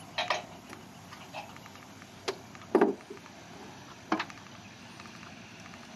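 Scattered clicks and knocks from gear being handled on a bass boat and its trailer, with a louder dull double thump about halfway through.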